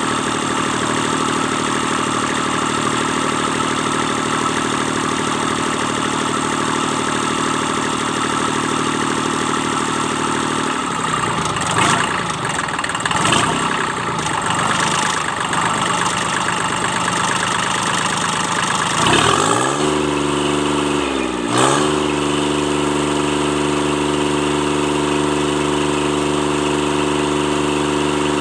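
Kubota D650 three-cylinder diesel, its injection pump freshly rebuilt, idling steadily. About eleven seconds in it turns uneven for several seconds. Near two-thirds of the way through it speeds up with a sharp rise in pitch, dips briefly, then runs steadily at a higher speed.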